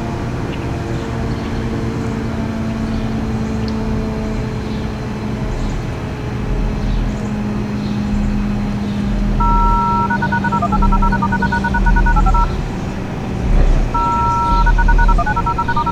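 ACA Hurricane 130 MKII tornado siren winding down, its low tone sinking a little and fading. Two bursts of electronic paired control tones are heard in the second half, each held briefly and then hopping between pitches.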